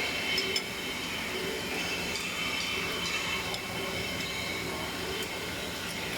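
Electric wrench spinning bolts on the compressor, a steady high-pitched mechanical whine with a faint metallic squeal and a few clicks.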